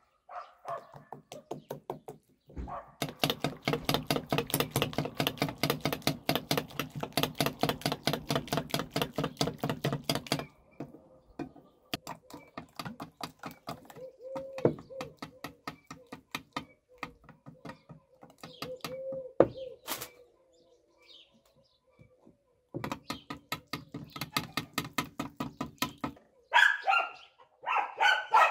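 Batter being beaten in a glass mixing bowl with a spoon and a wire whisk: a brisk run of rhythmic strokes, about five a second, that turns slower and lighter in the middle and picks up again. Near the end a dog barks several times.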